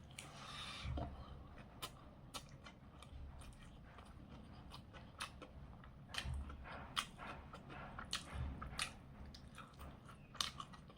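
A person chewing a potato and soybean dish close to the microphone, with many small wet mouth clicks and a few soft thumps.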